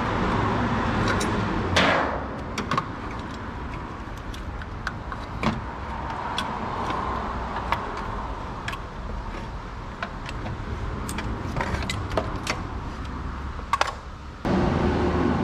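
Scattered sharp metallic clicks and clinks over a steady background hum; near the end a louder, steadier hum comes in.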